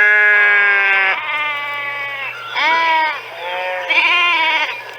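Sheep bleating: several calls in a row, the first one long, lasting about two seconds, then a short bleat and a wavering, quavering one near the end.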